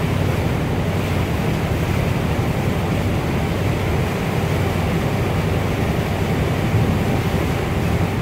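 The motor ship MS Sunnhordland under way: a steady low rumble of the ship's engine and hull, mixed with wind and rushing water noise.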